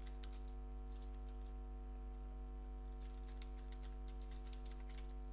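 Typing on a computer keyboard: keystrokes in short runs, with a pause of about a second and a half in the middle, over a steady low hum.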